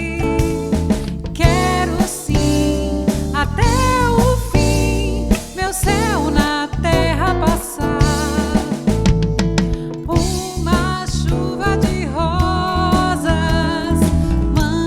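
A band playing a worship song, with a singer's voice over guitar, bass and drums.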